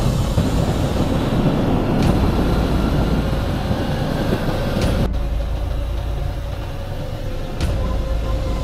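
Trail motorbike engines running along with heavy wind rumble on the microphone, the sound changing abruptly a few times, about every two to three seconds.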